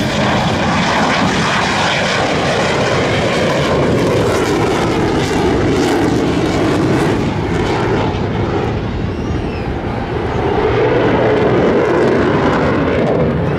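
Dassault Mirage 2000 fighter's single SNECMA M53 afterburning turbofan running loud in a low pass with the afterburner lit. It is a continuous jet rush that eases slightly about ten seconds in, then swells again as the jet pulls away in a climbing turn.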